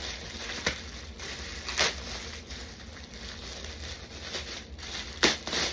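Plastic packaging crinkling in a few short bursts as the suit pieces are handled, the loudest a little under two seconds in and two more near the end.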